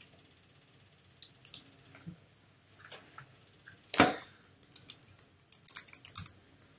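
Quiet room tone broken by scattered faint clicks and taps, with one sharp, loud click about four seconds in.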